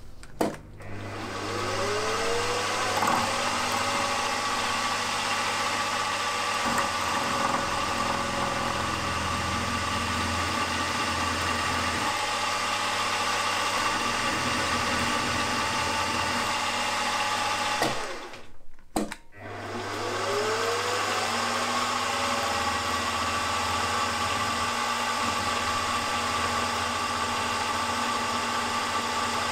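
Small milling machine's spindle motor starting up with a rising whine that settles into steady running, while a drill cuts into the join between the crank pin and crank web for a grub screw hole. It stops about 18 seconds in and starts up again with the same rising whine a second later.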